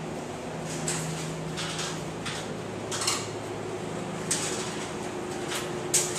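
Scattered light metallic clinks and clatters, about one every second or so and the sharpest near the end, over a steady low mechanical hum in a building under construction.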